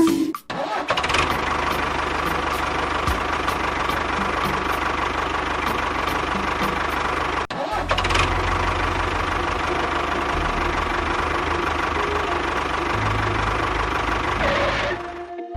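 A small motor running steadily, cutting out for an instant about halfway through and running on again until it stops near the end.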